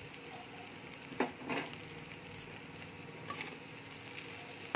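Chopped okra frying with a steady sizzle in an aluminium kadai. A metal spatula scrapes and knocks against the pan a few times: about a second in, again just after, and past three seconds.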